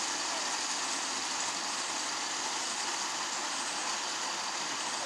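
Double-headed G scale live steam Mikado locomotives running with a full head of steam, giving a steady hiss with no distinct beats.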